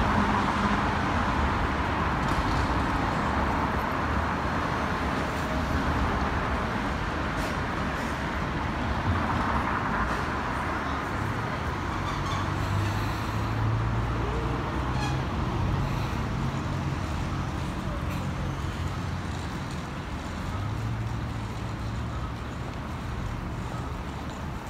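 A Toden Arakawa Line tram approaches and draws into the stop over steady city traffic noise. A low motor hum from the tram comes up about halfway through and again near the end.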